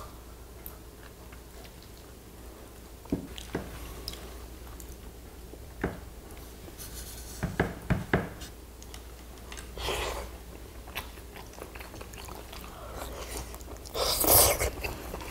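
Two people eating grilled rockfish and rice with chopsticks: chewing and mouth sounds, with scattered sharp clicks of chopsticks against bowls and plates, and a louder noisy burst near the end.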